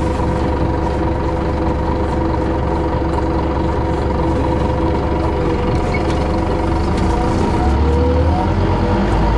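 City bus heard from inside the cabin as it drives: a steady engine note and hum. About seven seconds in, the engine note rises and grows a little louder.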